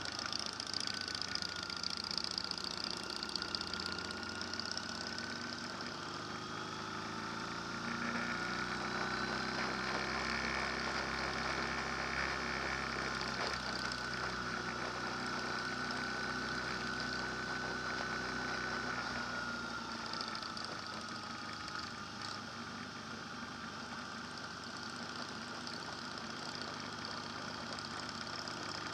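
An engine running steadily. Its note rises slightly and grows fuller about a third of the way in, then eases back down after about twenty seconds.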